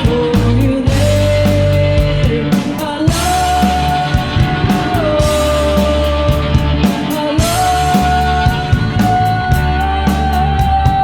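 A rock band playing: drums and cymbals keep a steady beat under held bass notes, while a sustained melody line slides from one long note to the next.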